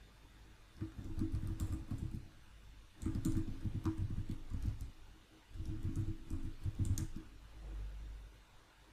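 Typing on a computer keyboard in three quick runs of rapid key clicks, each a second or two long, with short pauses between them.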